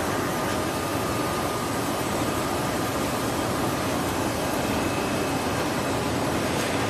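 Steady mechanical din of a kitchen towel roll production line running: conveyors and packing machinery, with a faint steady high whine over the noise.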